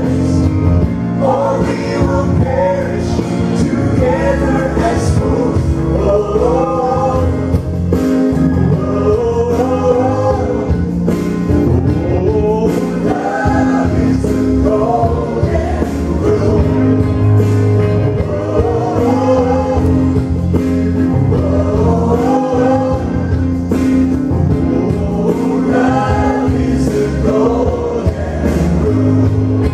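A woman and a man singing a gospel song as an amplified duet into hand microphones, over instrumental accompaniment with long held low notes.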